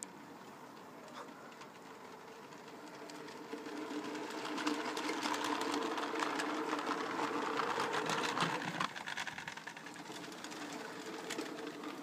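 Model garden-railway train running along its track: a steady mechanical whirr with rapid fine clicking. It grows louder as the train comes close about four seconds in, then drops off suddenly about nine seconds in.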